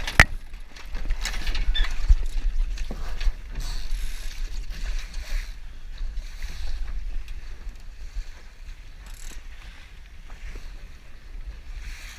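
Sailboat under way in chop: water rushing and splashing along the hull, with wind rumbling on the microphone. A few sharp knocks from the boat's fittings come in the first couple of seconds, and the whole wash eases off in the second half.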